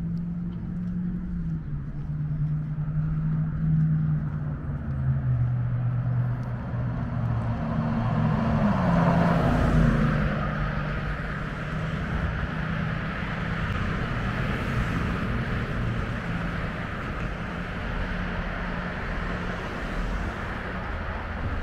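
Street traffic: car engines and tyres running steadily, with a vehicle passing close and loudest about nine to ten seconds in, its engine note dropping as it goes by.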